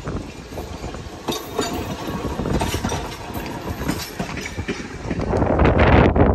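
Vintage electric interurban car running past on the rails, its wheels clicking over rail joints amid a steady rumble, swelling into a louder rushing noise near the end.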